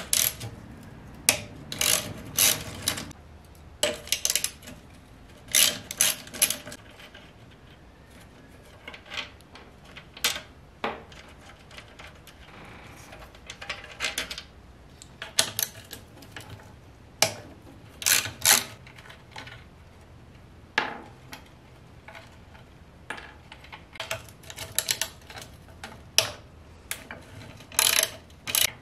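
Hand tools working on bolts: a wrench and socket ratchet clinking and clacking against metal, with quick runs of ratchet clicks and scattered sharp knocks as metal parts are handled.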